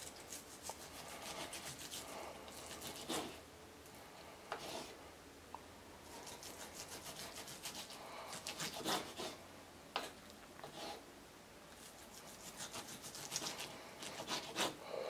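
Knife sawing through a cooked ribeye steak on a wooden cutting board: several bouts of quick back-and-forth rasping strokes, with a few separate knocks in between.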